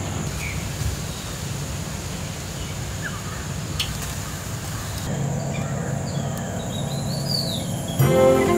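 Birds chirping and calling over a steady low background rumble, with a few short, sweeping chirps in the second half. Near the end a louder sound cuts in abruptly.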